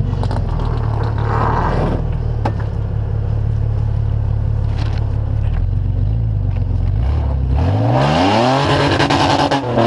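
Rock crawler's engine running at low revs while it climbs a rock ledge, with a few short knocks of the truck on the rock. Past the two-thirds mark the engine revs up, its pitch rising and then holding high.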